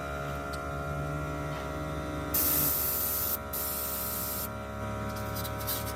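Compressed air hissing from an air tool in two bursts of about a second each, a little over two seconds in, over a steady electrical hum.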